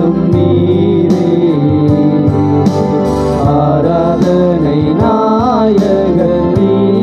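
Men singing a Tamil Christian worship song into microphones over electronic keyboard accompaniment with a steady beat. The voice bends through a drawn-out run about five seconds in.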